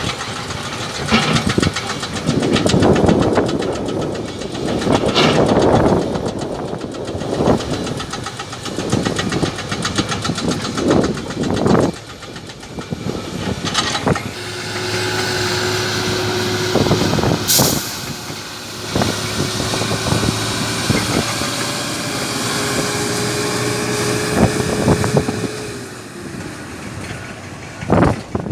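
Heavy hydraulic excavator at work in rock: a diesel engine running under irregular loud clanks and crunches of rock and steel. About halfway through the engine settles into a steady hum with a held whine, which drops away near the end.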